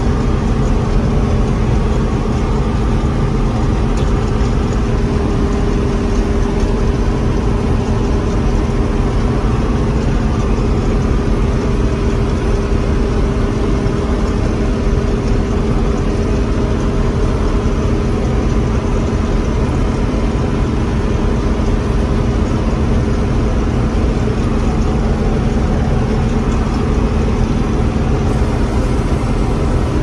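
John Deere 6600 combine running steadily while harvesting soybeans, heard from inside its cab: engine and threshing machinery in a constant loud drone with a steady hum.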